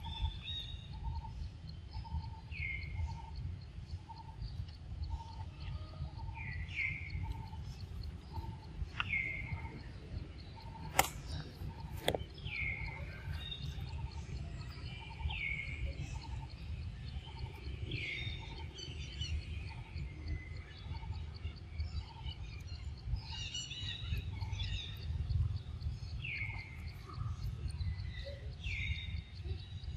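Outdoor birdsong: short downward-sliding chirps repeating every couple of seconds, over an even series of low piping notes at about one and a half a second and a steady low rumble. Two sharp clicks sound about eleven and twelve seconds in.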